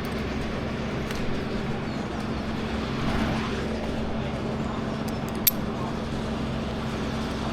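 Engine running steadily at a constant speed, with one sharp click about five and a half seconds in.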